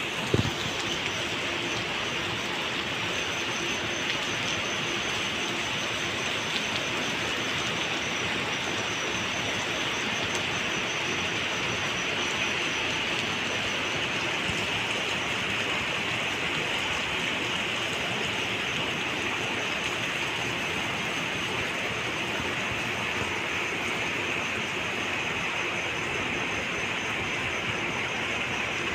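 Rain falling steadily, a constant even hiss with no let-up. There is a single short knock just after it begins.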